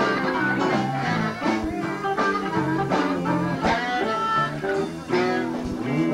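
Live blues band playing, with electric guitar, bass and drums.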